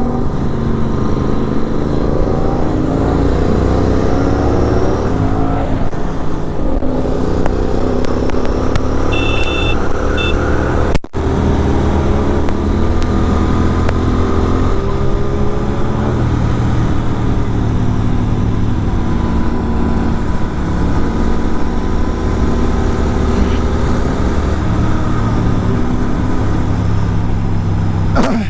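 Superbike engine with an aftermarket exhaust, ridden along a road, its pitch repeatedly climbing under throttle and falling away as it shifts and backs off. Two short high beeps sound about nine seconds in.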